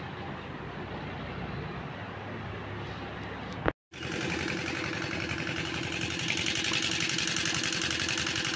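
An engine running steadily with a fast, even chug, louder after a brief dropout a little under four seconds in; before that a low steady hum.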